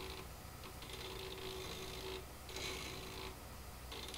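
Steering servo of an Axial SCX10 II RC crawler whirring faintly in short bursts of about a second, as the steering is worked from the transmitter.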